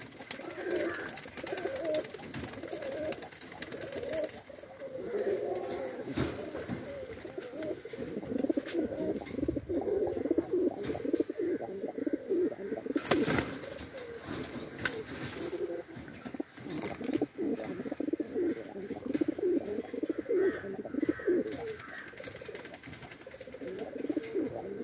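Lahore pigeons cooing over and over, low rolling coos one after another, with a short sharp clatter about 13 seconds in.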